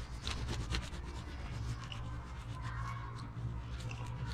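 A cloth being rubbed by hand over a small part to wipe it clean, in short irregular scrubbing strokes, with a low steady hum underneath.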